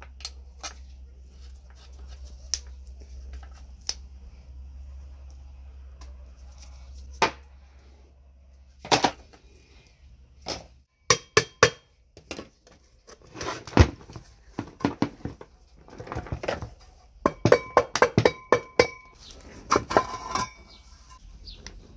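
Steel parts of a chain hoist's gear train and housing clinking and knocking as they are handled and fitted by hand: scattered single clicks at first, then quick clusters of knocks in the second half, some with a short metallic ring.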